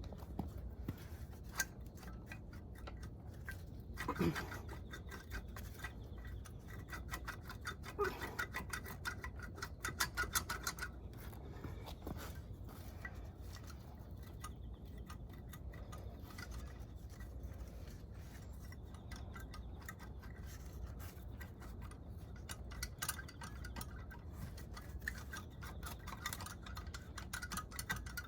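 Rapid back-and-forth scrubbing strokes, with louder spells about four seconds in, around eight to eleven seconds, and again near the end.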